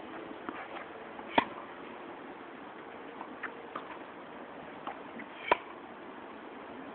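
Tennis racket striking the ball twice, sharp and loud, about four seconds apart in a forehand baseline rally. Fainter ticks come in between from the ball bouncing on the hard court and the far player's returns.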